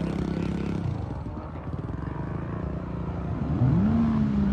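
An off-road vehicle's engine running: a steady note at first, then rising in pitch as it revs up about three and a half seconds in and holds there, a little louder.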